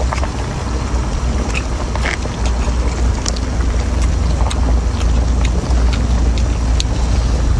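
Scattered sharp clicks and crunches of shellfish shell being cracked and chewed, over a steady low rumble.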